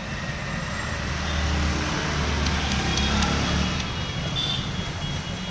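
Low rumble of a motor vehicle's engine close by, swelling about a second in and easing off near the end. Beneath it, a few faint clicks of a screwdriver tightening a screw in the carburettor's float-bowl cap.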